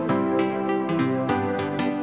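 Gentle instrumental background music, with pitched notes struck at a steady pace of about three a second.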